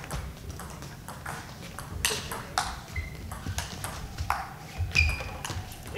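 Table tennis rally: the ball clicking back and forth off the bats and the table, about two hits a second.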